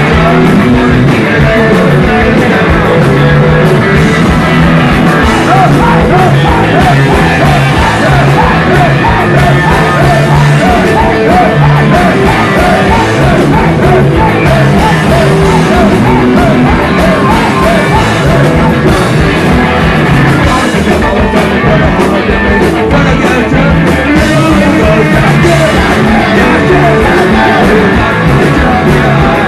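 Rock band playing live, very loud, with electric guitars, a drum kit and sung, shouted vocals.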